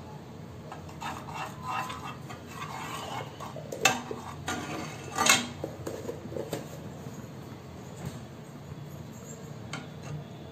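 Steel spoon scraping and clinking against a nonstick frying pan as it works ghee into oil, with two sharper clinks about four and five seconds in.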